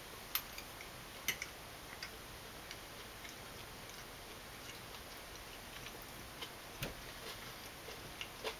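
A metal fork clicking now and then against a plate while eating: a few light, scattered clicks over quiet room tone.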